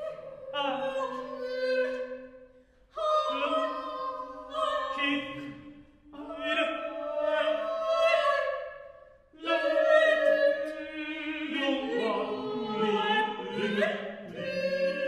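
A cappella vocal ensemble singing held, overlapping notes in four phrases with short breaks between them. The last phrase is fuller, with more voices sounding at once.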